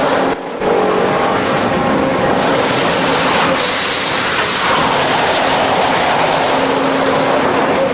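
Heavy industrial lathe running and cutting: a loud, steady machine noise with a faint hum under it, briefly dropping about half a second in.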